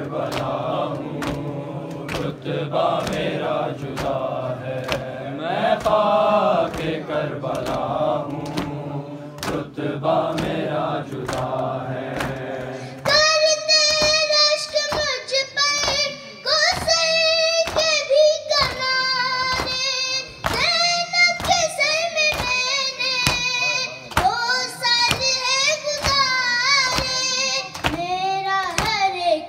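Urdu noha sung without instruments: for the first half a group of male voices chants in unison, then about 13 seconds in a boy's high voice takes over alone. Throughout, rhythmic matam, open hands striking chests in unison, keeps a steady beat of about one and a half strokes a second.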